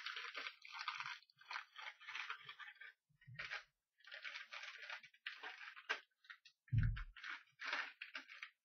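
Packaging of a blind-box mystery figure crinkling and crunching in irregular bursts as it is torn open by hand. There is a soft thump about three seconds in and a louder dull thump about seven seconds in.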